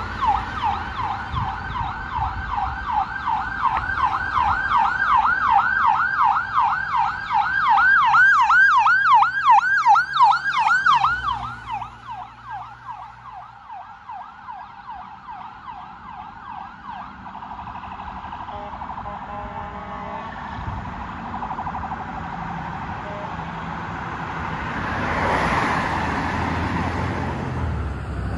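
Ambulance siren in yelp mode: a rapid, continuous rising-and-falling wail. It grows louder as the ambulance approaches, then drops away sharply about eleven seconds in and fades as it drives off. Road traffic noise follows, with a vehicle passing near the end.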